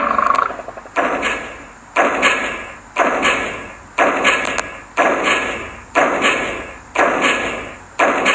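Slow, evenly spaced heavy thuds, about one a second, each dying away in a long echo; a higher steady tone fades out during the first half second.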